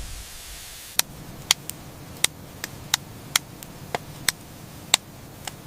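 A series of sharp clicks, about a dozen at irregular intervals, starting about a second in, over a faint steady hiss.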